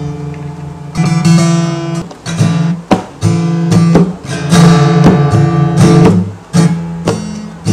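Acoustic guitar strummed unevenly by someone who cannot play it: a run of ringing chord strums in irregular bursts, starting about a second in.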